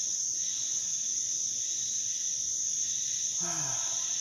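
Steady high-pitched insect chorus, like crickets, droning without a break. About three and a half seconds in, a short vocal sound falls in pitch.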